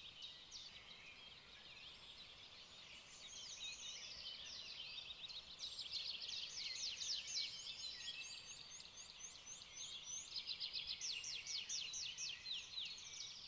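Birds chirping and trilling, with many quick high notes overlapping, growing busier and louder about halfway through.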